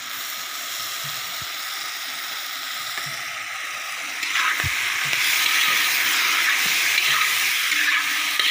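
Duck meat frying in a wide black wok, a steady sizzle that gets louder about four seconds in, with a metal spatula scraping through the meat as it is stirred.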